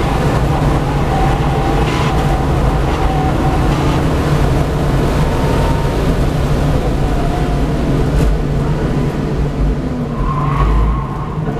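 V8 Supercar's V8 engine at full throttle heard from inside the cabin, pulling hard down a straight, then backing off as the car brakes hard for a corner, with a short squeal of tyres near the end.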